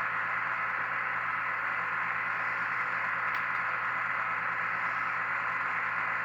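Steady, even hiss like static, with one faint tick about three seconds in.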